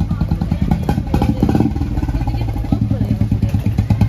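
Motorcycle engine running close by: a steady low drone with a fast, even pulse.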